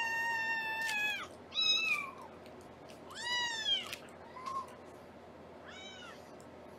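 Young kitten meowing with high, thin cries: a long meow that ends about a second in, then three or four shorter meows that rise and fall in pitch, spaced a second or two apart.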